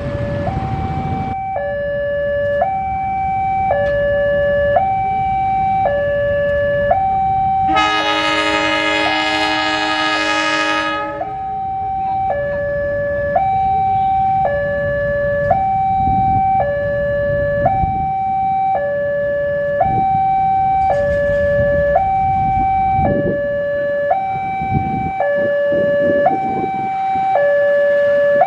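A railway level-crossing warning alarm sounds throughout, alternating between two tones about once a second. About eight seconds in, the CC 201 diesel locomotive sounds its horn in a chord for about three seconds, the semboyan 35 signal for departure. The low rumble of its engine runs underneath.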